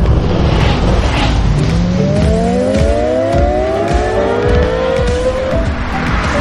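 Car engine accelerating, its pitch rising steadily for about four seconds from a second and a half in, over background music.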